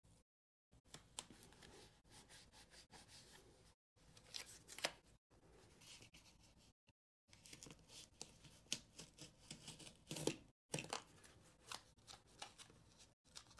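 Faint scraping, rustling and crackling of thick double-walled cardboard being cut and handled, in short irregular bursts with a few sharper snips and brief silent gaps.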